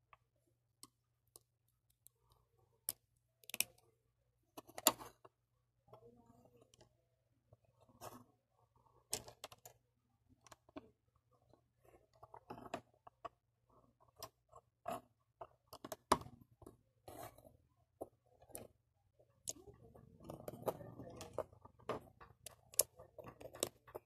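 LEGO plastic bricks and beams clicking and clacking irregularly as they are handled and pressed together, with a few louder snaps. Near the end comes a longer stretch of rustling as the pieces are handled.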